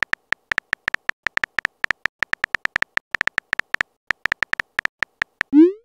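Simulated keyboard typing clicks from a texting-story app: a fast run of short, same-pitched ticks, about eight a second, as a message is typed out letter by letter. Near the end a short rising swoosh follows as the message is sent.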